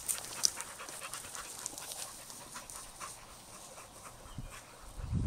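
Norwegian Elkhounds panting as they rest after a hike. A louder low rumble comes in near the end.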